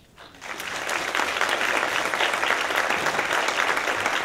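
Audience applauding: clapping starts about half a second in, builds within a second and then carries on steadily.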